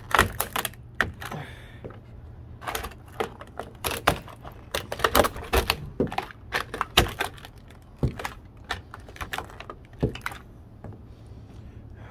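Rapid, irregular clacks and knocks of hard pieces of a smashed old radio clattering together, in bunches, dying away after about ten seconds.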